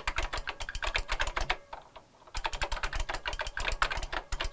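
Fast typing on a Tandy Color Computer 2 keyboard: the original keycaps over a Keyfix2 board of mechanical key switches, the switches heard clicking under the keys. Quick runs of keystrokes with a short pause a little before halfway.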